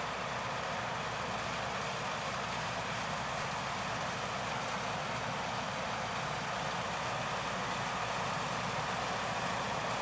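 John Deere S690i combine harvester running while harvesting, with a Massey Ferguson tractor and grain trailer driving alongside: a steady, even machinery drone that does not change.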